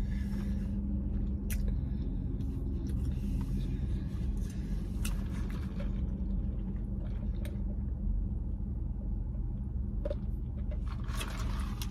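Steady low rumble of a car idling, heard from inside the cabin, with a few soft clicks as a drink is sipped through a straw.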